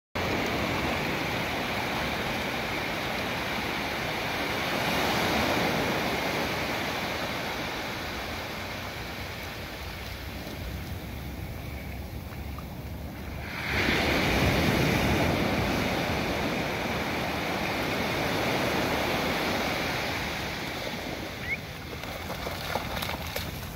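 Small ocean waves breaking and washing up a sandy beach, rising and falling, with a louder surge a little past halfway.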